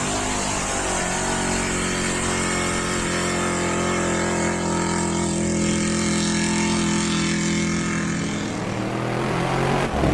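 Off-road buggy engine running at a steady pitch. Near the end the engine note drops and the level dips briefly before it steadies again.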